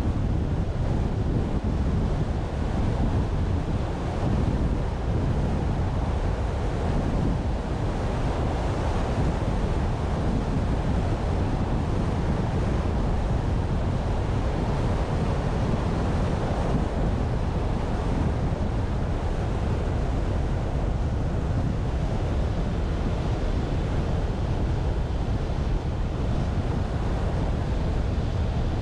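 Steady road and tyre rumble of a car driving, mixed with wind noise on the microphone.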